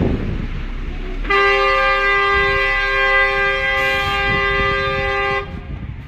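A vehicle horn sounding one long, steady blast, starting about a second in and stopping shortly before the end, over the noise of traffic on an icy street.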